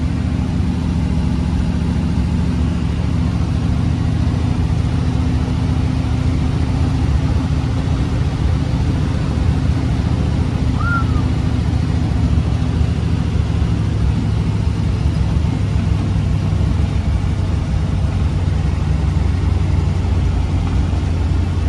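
1932 Ford roadster's flathead V8 running at a steady cruise, with road and wind noise, heard from the driver's seat.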